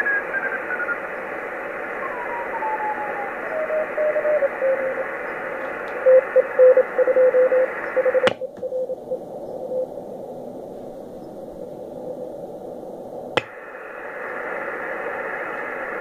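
Sproutie MK II regenerative shortwave receiver's audio on the 40 m band. A Morse code (CW) signal's tone falls steadily in pitch as the receiver is tuned across it, then settles into a low keyed CW note over band hiss. About eight seconds in, the filter switch clicks and the audio narrows to a dull low band with the hiss above cut off. About five seconds later another click brings the wider audio back.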